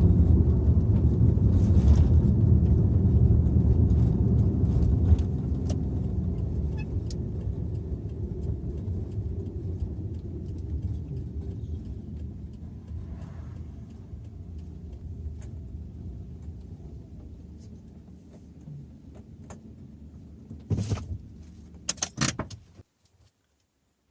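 Car rumbling low and steady, fading away slowly, with a few clicks and rattles near the end before the sound cuts off.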